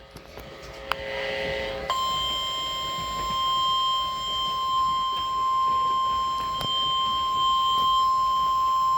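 Emergency alert warning tone for a severe thunderstorm warning: a single steady high-pitched tone that starts about two seconds in and holds unbroken. A few fainter tones come before it.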